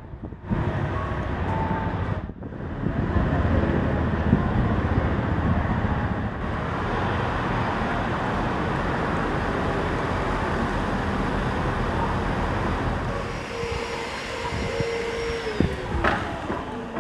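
Steady urban traffic noise of passing vehicles. Near the end a steady hum sounds for about two seconds, then drops in pitch.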